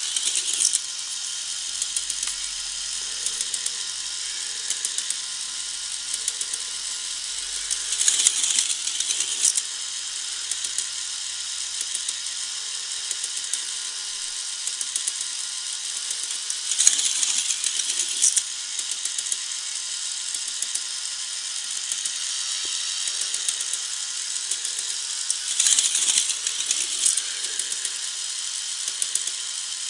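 K'nex Electric Inferno roller coaster running: the battery-motor lift keeps up a steady, fast clicking rattle. Four times, about every eight or nine seconds, a louder rattling rush comes as the car runs down the plastic track.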